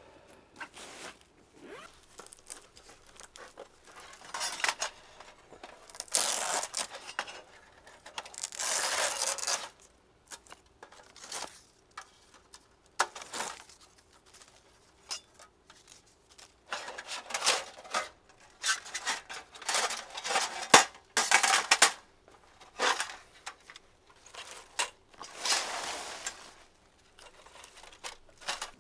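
Fabric carry bag rustling and unzipping, with thin metal panels of a Pomoly folding wood stove clinking and scraping as they are taken out, in irregular bursts with short pauses.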